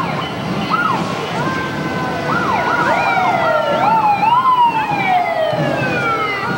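Several vehicle sirens sounding together: short rising-and-falling whoops and sweeping up-and-down wails over two steady held tones, with a long slow falling wail from about four seconds in.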